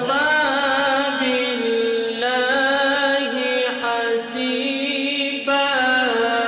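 A man's voice reciting the Quran in the melodic, drawn-out tilawat style, holding long notes with wavering ornaments. New phrases start about two, four and five and a half seconds in.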